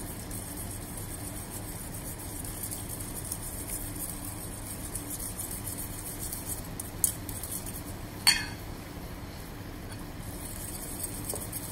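Spiral whisk stirring melting butter and mustard in a stainless steel bowl over a water bath, with soft scraping and two sharp metal clinks of the whisk against the bowl, the louder one about eight seconds in.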